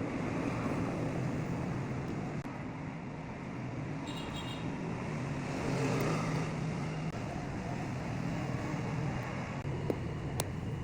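Steady background noise like road traffic, with two brief sharp clicks near the end.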